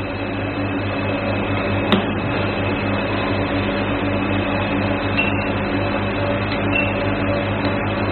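IPL hair-removal machine running with a steady hum made of several steady tones, with one sharp click about two seconds in.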